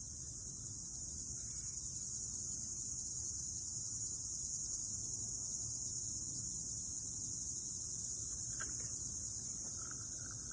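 Steady, high-pitched insect chorus trilling without a break, over a faint low rumble, with a short faint chirp near the end.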